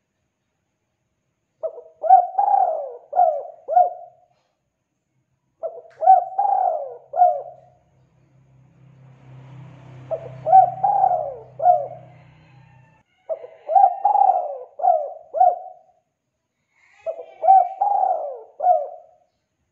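Spotted dove cooing: five phrases of three or four short notes each, a few seconds apart. A faint low hum runs under the middle phrase.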